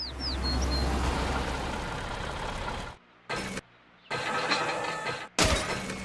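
Cartoon sound effect of a vehicle engine starting and running with a deep rumble for about three seconds, cutting off suddenly, followed by two shorter bursts of engine noise with brief silences between.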